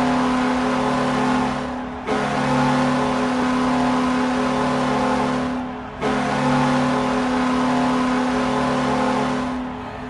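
Buffalo Sabres goal horn sounding in long, steady, low-pitched blasts: one ends about two seconds in, a second runs about four seconds, and a third fades out near the end.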